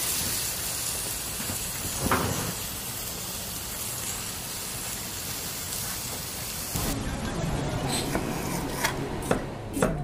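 Food being stir-fried in a wok over a high gas flame: a steady sizzling hiss, with a single metal knock about two seconds in. Near the end the sound changes to a few sharp knife chops on a plastic cutting board.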